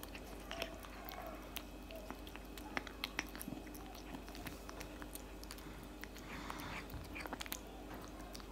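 Tabby cat eating wet chunk cat food from a plate: irregular wet chewing and smacking clicks, with a quicker run of chewing about six to seven and a half seconds in.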